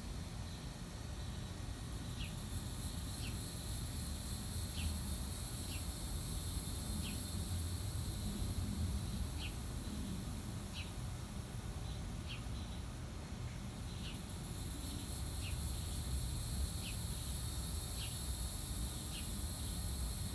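Old ceiling fan turning slowly, its worn motor bearings giving a short high squeak about once a second over a low hum; the owner calls the bearings a little bit noisy. A steady high buzz drones behind it, dropping out briefly a little past halfway.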